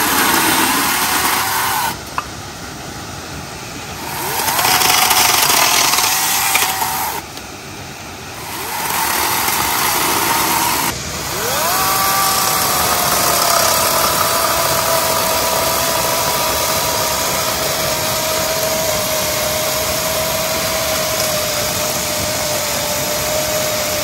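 A chainsaw cutting firewood: three short bursts of cutting with lulls between, then one long cut from about halfway in, during which its pitch slowly falls.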